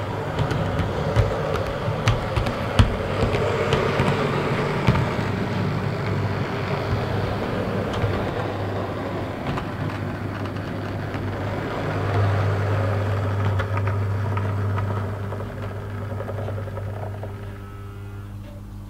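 An EFE Rail OO gauge Class 143 Pacer model train running on the layout track: its motor whirs steadily, and its wheels rattle with sharp clicks over the rails and points. The sound fades away over the last few seconds as the train slows and stops at the platform.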